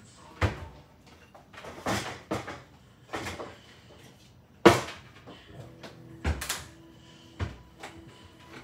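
Kitchen cupboard doors and drawers being opened and shut while rummaging through cookware, with about eight separate knocks and clatters, the loudest a little past the middle.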